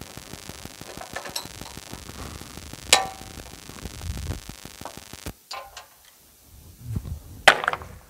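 Background music that stops about five seconds in, with a few sharp wooden knocks of sawn hemlock boards being handled on the sawmill bed; the loudest knocks come about three seconds in and near the end.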